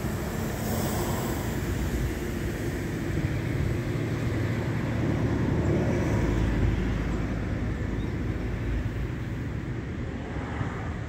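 BMW R 1200 GS LC's boxer twin engine running steadily at idle.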